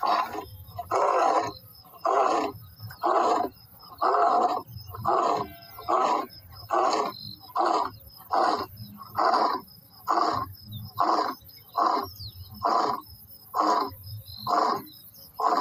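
Male lion roaring: a long run of deep, grunting calls, about one every 0.8 seconds. The first few are longer, and the calls become shorter as the series goes on.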